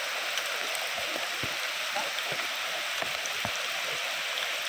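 Steady hiss of rain falling on a shallow, rocky river, mixed with the rush of the rapids, with scattered small drop taps throughout.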